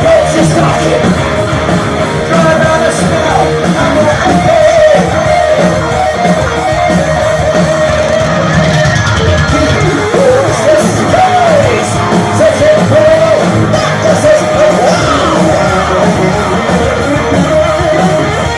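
Heavy metal band playing live at full volume, with distorted electric guitars and drums under high, bending vocal lines.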